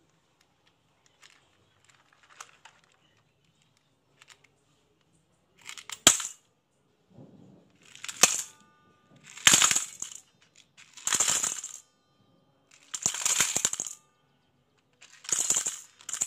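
Glass marbles and plastic gems pouring from a toy dump truck into a stainless steel bowl, clattering and clinking against the metal. After a few faint clicks, it comes in about seven bursts every second or two, starting some six seconds in, with the bowl ringing briefly after some of them.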